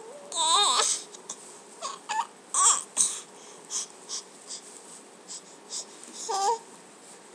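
Baby vocalizing around a pacifier: a wavering, warbling squeal near the start, then short whiny cries about two, two and a half and six seconds in, with small clicks between.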